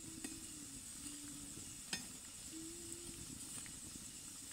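Gaja pieces deep-frying in hot oil in an iron kadhai, the oil sizzling steadily. A perforated metal skimmer clicks against the pan twice, sharply once about two seconds in.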